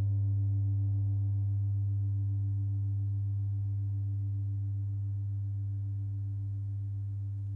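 Suspended gong ringing out after a strike: a deep steady hum that slowly fades, its higher overtones dying away within the first few seconds.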